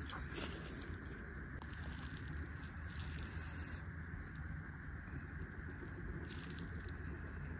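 Bamboo chopsticks stirring and lifting saucy instant noodles in a metal wok: soft, wet, sticky patter with a few faint ticks near the start, over a steady faint background hum.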